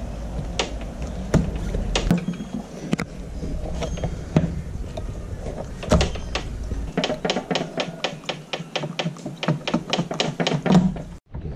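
Utility knife cutting and prying at a glued rubber fin foot pocket: scattered sharp clicks, then a quick run of clicks, about five a second, in the second half.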